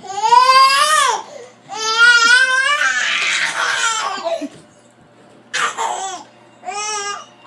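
A one-year-old toddler squealing and laughing with excitement: about five high-pitched squeals that rise and fall, some clear and some breathy.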